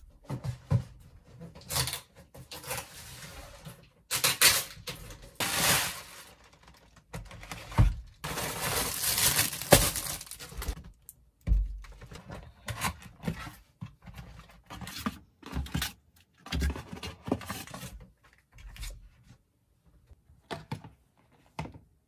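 Groceries being unpacked on a kitchen counter: plastic bags rustling and crinkling, with knocks and thunks as packages are set down, in irregular bursts and a longer stretch of rustling about eight seconds in.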